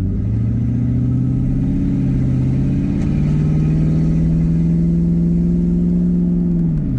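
2001 Mustang GT's 4.6-litre V8 with the cat-back exhaust deleted, accelerating from a stop, heard from inside the cabin. Its note climbs steadily, then drops sharply near the end as the automatic shifts up.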